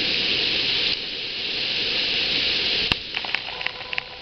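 Heavy hail and rain coming down in a steady hissing roar. About three seconds in there is a sharp knock, the roar falls away, and scattered sharp ticks follow.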